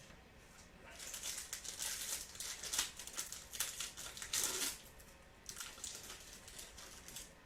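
Foil trading-card pack wrapper crinkling and rustling in the hands in quick, irregular crackles, starting about a second in and softening after about five seconds.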